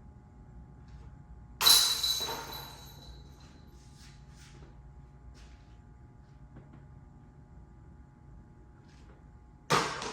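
Two disc golf putts striking the chains of a disc golf basket, one about a second and a half in and one near the end; each hit is a sharp clash followed by a high jingling ring that dies away over about a second.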